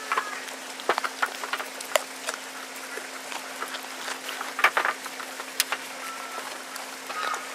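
A goat biting and chewing raw carrot slices: irregular crisp crunches, with an occasional louder snap as a slice breaks.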